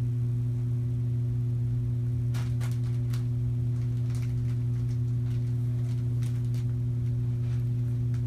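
A steady low hum with a few faint light ticks over it.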